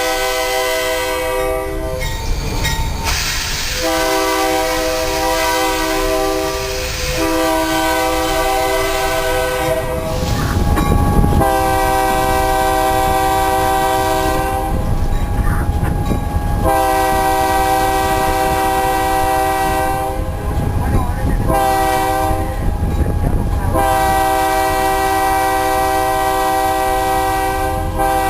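Locomotive multi-chime air horn sounding a chord in a run of long blasts with short breaks, one blast much shorter, over the rumble and clickety-clack of the passing train.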